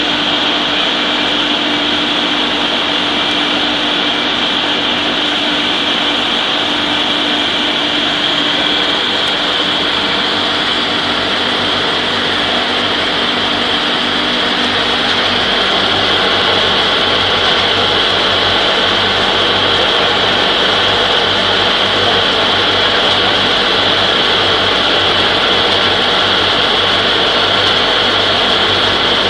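Electric peanut butter grinding mill running steadily under load as it grinds roasted peanuts into smooth paste: an even machine hum with a bright high hiss, unchanging throughout.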